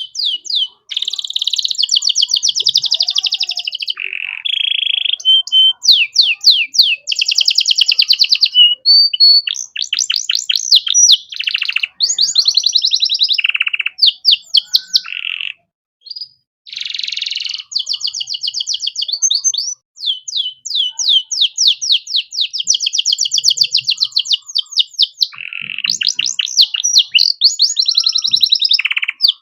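Male canary singing: long, loud song of rapid trills and repeated chirps, with brief breaks, used as master song for training other songbirds.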